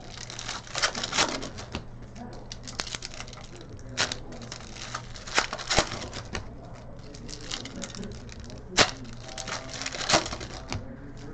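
Trading cards and card packs being handled on a table: irregular clicks and light taps, with several sharper snaps spread through.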